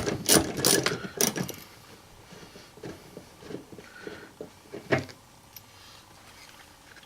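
Sharp clicks and clatter of seatbelt buckle hardware being handled for about a second and a half, then quieter handling noises with a single knock about five seconds in.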